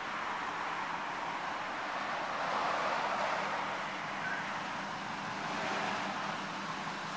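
Steady road-traffic noise over a faint low hum. A vehicle passes by, loudest about three seconds in, and a smaller swell follows near the end.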